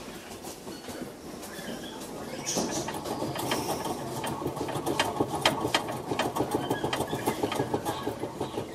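Wire-mesh hamster wheel spinning fast and rattling on its stand as a degu kicks it round with its hind feet. The rattle picks up about two and a half seconds in, with sharper clicks mixed in.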